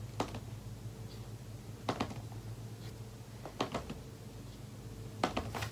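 Light taps and small knocks of painting supplies being handled, a few seconds apart, over a steady low room hum.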